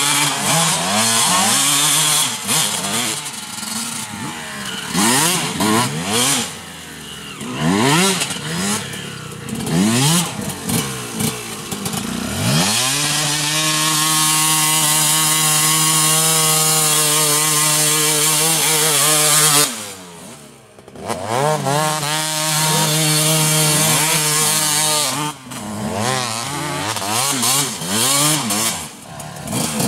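Two-stroke dirt bike engines revving hard, the pitch rising and falling over and over. About twelve seconds in, one bike is held at high steady revs for several seconds, dips briefly, holds again, then goes back to rising and falling revs.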